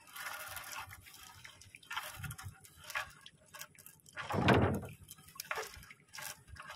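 Wet gill net being hauled hand over hand over the side of a small boat: seawater dripping and splashing off the net in irregular bursts, with one louder splash about four and a half seconds in.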